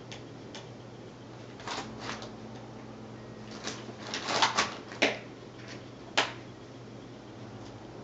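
Scattered short knocks and clicks from painting things being handled at a plastic toy easel, loudest in a quick cluster about halfway through and two single sharp clicks after it, over a low steady hum.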